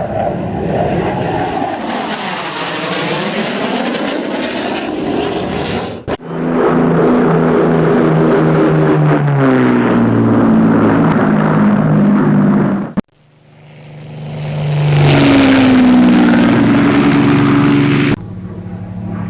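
Aeroplane sound effects played one after another, with abrupt cuts about six and thirteen seconds in. In the later two the engine note drops in pitch as the plane passes, and the last one swells up from quiet first.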